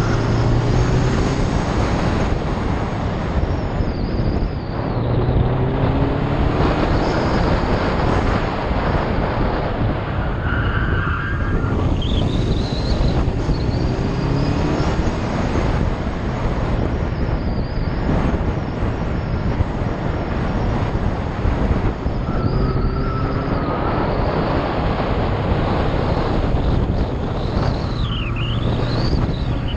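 Subaru WRX's turbocharged flat-four engine revving up and down through the gears on an autocross course, with heavy wind noise buffeting the outside-mounted microphone. A few short high squeals from the tyres in hard turns.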